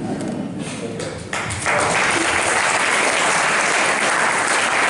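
Audience applauding, the clapping swelling to full strength about a second and a half in.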